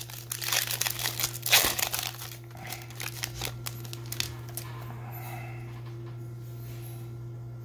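Foil trading card pack wrapper crinkling and tearing in the hands, a dense run of crackling for about the first three and a half seconds. It then dies down to a few faint clicks of cards being handled over a steady low hum.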